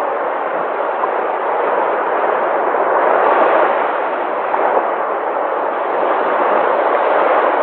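Sea waves breaking and washing on a shore: a steady rushing that swells and eases slowly, louder about three seconds in.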